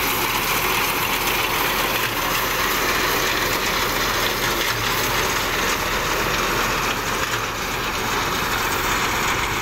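Tractor engine running steadily with a constant, even noise, powering a mounted reaper binder.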